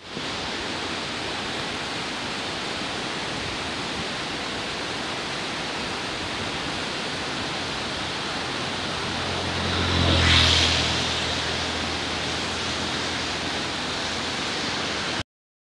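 Steady rushing outdoor noise, like wind or water on the microphone, that swells briefly about ten seconds in with a low hum under it. It cuts off suddenly near the end.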